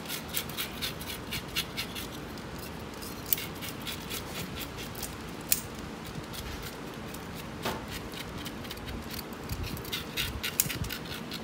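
Yellowtail snapper being scaled with a metal spoon: quick runs of crackling scrapes in the first couple of seconds and again near the end, with single sharp clicks between. Kitchen shears snip at fins and tails.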